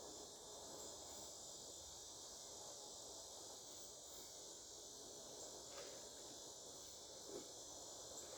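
Near silence: a faint, steady, high-pitched background hiss, with two faint soft taps, one about six seconds in and one about seven seconds in.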